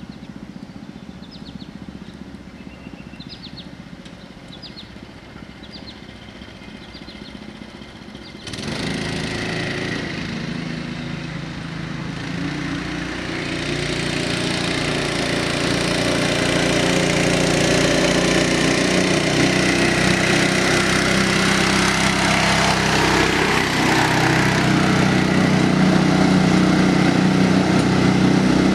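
Honda GX160 single-cylinder four-stroke engine powering a Ford Model T pickup, running steadily as the truck drives by. Its sound comes in suddenly about eight seconds in and grows louder as the truck comes close.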